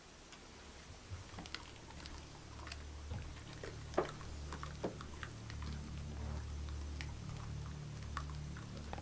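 Scattered small clicks and taps, the sharpest about four and five seconds in, over a low hum that fades in from about a second in and grows steadily louder.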